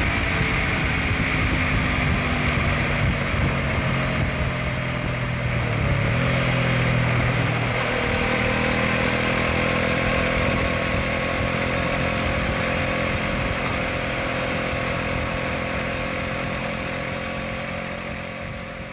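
Honda CBR500R's parallel-twin engine running at road speed, heard from on the bike over steady road and wind rush. The engine note shifts about seven seconds in, and the sound fades down over the last few seconds.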